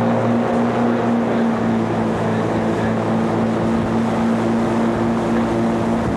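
Ski tow boat's engine running at a steady pitch, heard from on board. Over it is the rushing of the churned wake and spray.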